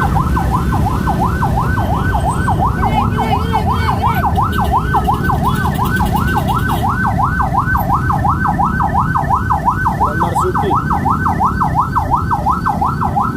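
Electronic siren in a fast yelp, sweeping up and down about three or four times a second without a break, over a steady low rumble of traffic or machinery.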